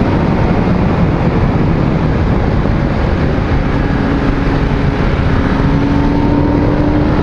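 Yamaha FZ1 inline-four motorcycle engine running at a steady cruise on the move, under heavy wind rush on the microphone. A steady engine note stands out from about halfway through.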